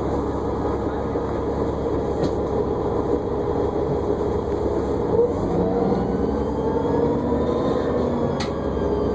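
A New Flyer D40LFR diesel transit bus under way, heard from inside the cabin: steady engine and road noise with a whine that rises in pitch in the second half, and a couple of brief rattles.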